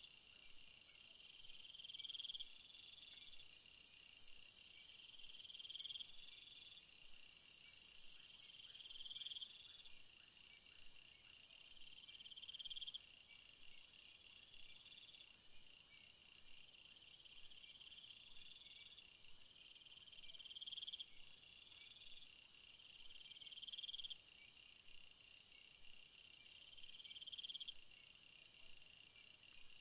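Faint nature ambience of insects and birds: a short buzzy call rising in pitch, repeated about every two seconds, over a steady high trilling chorus.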